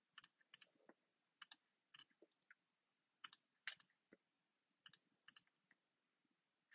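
Faint, sharp computer mouse clicks, a dozen or so spread through, several in quick press-and-release pairs, as links are opened in new browser tabs.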